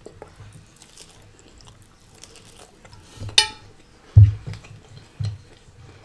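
Eating close to a microphone: faint chewing, and a metal fork clinking once against a plate about three and a half seconds in, with a short ringing. Two low thumps follow near the end.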